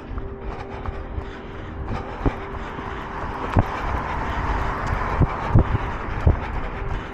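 A vehicle passing by: its road noise swells about three seconds in and fades near the end, with a few scattered low thumps.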